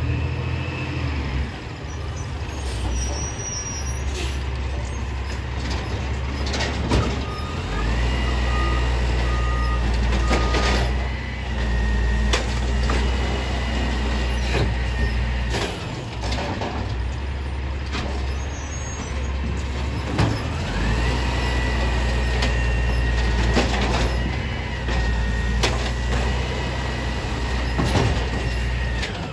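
Automated side-loader garbage truck working its hydraulic arm. In three long stretches the engine revs up to drive the hydraulic pump, with a whine that rises and then holds. Short beeps sound in the first stretch, and there are sharp clanks and air hisses as bins are grabbed and dumped.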